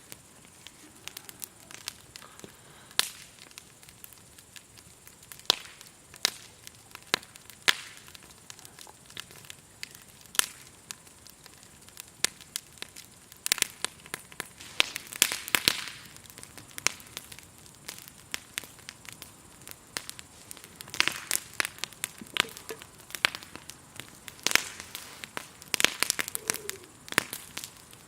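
Burning firewood in a campfire crackling and popping in irregular sharp snaps, coming in denser clusters a little past the middle and again near the end. A faint steady high chirring of grasshoppers runs underneath.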